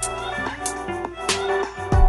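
Instrumental background music with a steady beat: sustained keyboard-like chords over regular drum hits, the low bass dropping out for most of this stretch.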